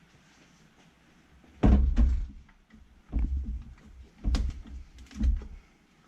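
Four bunches of thuds and clunks about a second apart, the first and third the loudest, typical of handling tools and parts during brake work on a car.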